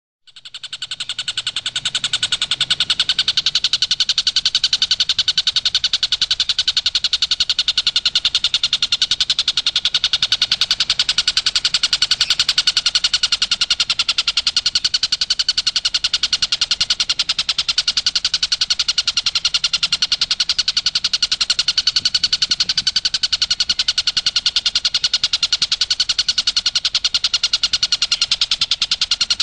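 Tengkek buto kingfisher's 'tembakan' call: a loud, very fast rattling trill of sharp notes, repeated without a break. It starts abruptly and then runs with an even, unchanging rhythm and pitch.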